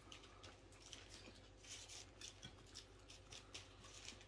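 Faint, irregular crunching and crackling from eating crispy fried chicken wings.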